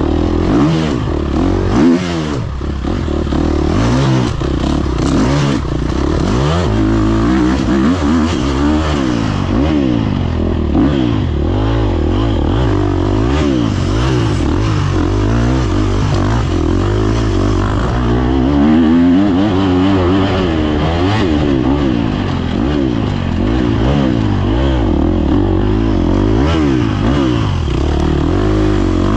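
Off-road dirt bike engine revving up and down without a break as it is ridden hard through a trail, with scattered knocks and clatter from the bike over rough ground.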